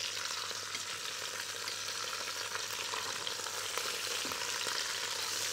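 Chicken legs frying in hot fat in a stainless steel pot while they are turned with metal tongs: a steady sizzle with small crackles.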